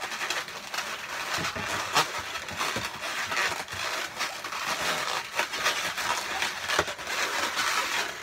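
Inflated latex twisting balloons rubbing and squeaking against each other as a long green balloon is wrapped and twisted into a balloon sculpture, with scattered sharp creaks and clicks.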